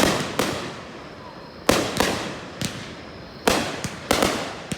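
Aerial fireworks shells bursting in an irregular series of sharp bangs, each trailing off in an echoing rumble. The bangs come closer together near the end.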